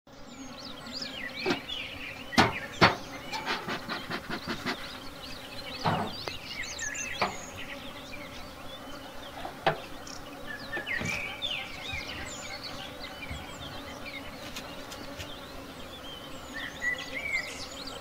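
Honeybees humming steadily around an open wooden hive. Over the first ten seconds a metal hive tool knocks and taps sharply against the wooden hive body, several times in quick succession.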